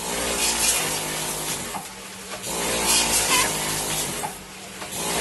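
Rotary pre-made pouch packing machine running, filling potato-chip doypacks: a steady motor hum under clattering machine noise and short hisses of air, swelling and dropping in a working cycle about every two and a half seconds.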